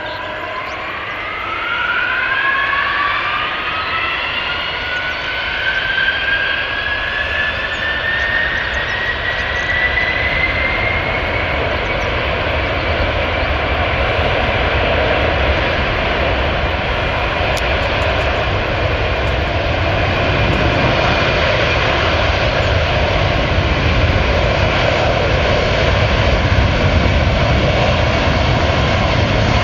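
Delta Boeing 767 jet engines spooling up to takeoff power at the start of the takeoff roll: a rising whine over the first dozen seconds, then steady jet noise that slowly grows louder as the airliner accelerates along the runway.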